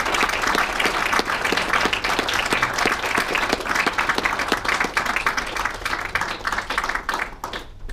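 Audience applauding, many hands clapping together; the applause dies away near the end.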